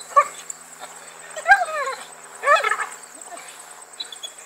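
A dog whining three times in short, high cries while it hangs by its teeth from a rubber tire swing.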